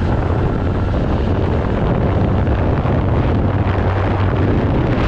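Wind rushing over the microphone while riding a Yamaha RayZR 125 scooter at speed, with its single-cylinder engine running underneath.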